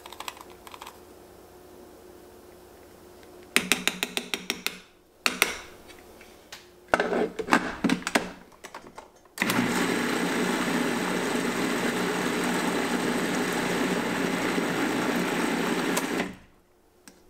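Plastic clicks and knocks as the food processor lid is fitted and locked. Then the food processor runs steadily for about seven seconds, blending roasted apple, carrot and onion with miso and stock into a smooth sauce, and stops abruptly.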